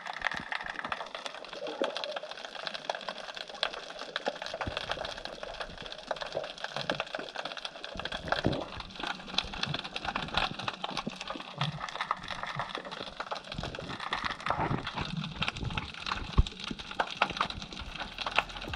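Underwater sound of the sea heard while snorkeling: a dense, irregular crackling and clicking that never lets up.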